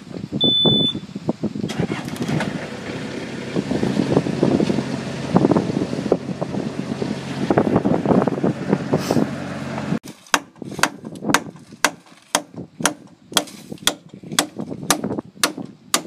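A skid-steer loader's engine running steadily. About ten seconds in it gives way to a quick series of hammer blows on wood, about two or three a second, as a wooden block is nailed onto a bunk plank.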